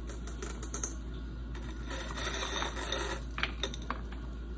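A few light clicks and taps of M&M candies being handled and dropped into a silicone pop-it mold, over a steady low background hum.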